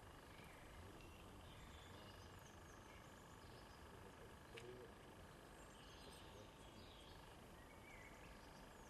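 Near silence: faint outdoor ambience with scattered faint bird chirps and a single sharp click about four and a half seconds in.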